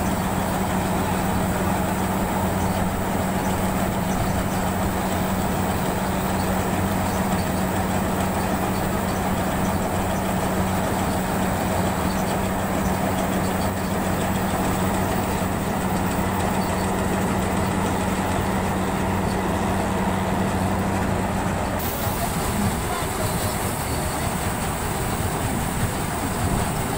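Combine harvester running steadily while its unloading auger discharges threshed paddy grain, a constant low engine hum under a noisy mechanical din. About three-quarters of the way through, the hum stops abruptly and a different combine's running noise takes over.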